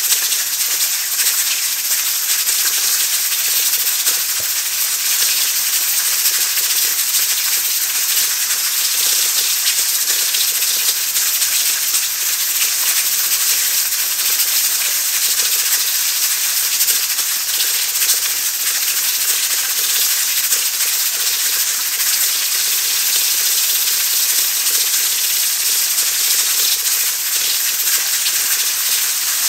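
Aluminium stovetop pressure cooker at pressure, steam hissing steadily from its weighted valve with a fast, fine rattle in the hiss.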